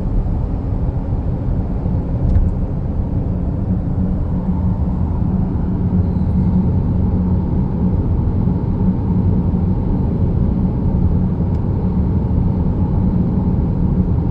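Steady low rumble of a car on the road heard from inside the cabin: engine and tyre noise while driving at a constant speed.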